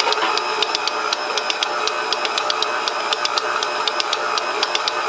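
Stand mixer running at speed, its dough hook kneading a ball of pizza dough in the steel bowl: a steady motor whir with rapid, regular clicking several times a second.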